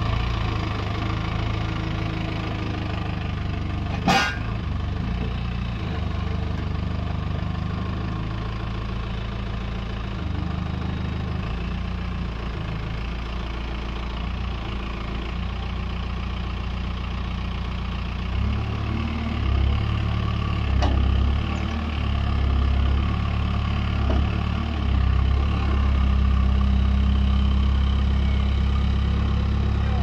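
Case 851EX backhoe loader's diesel engine working under load as the machine climbs a steep dirt mound, growing louder in uneven surges through the second half. A single sharp knock about four seconds in.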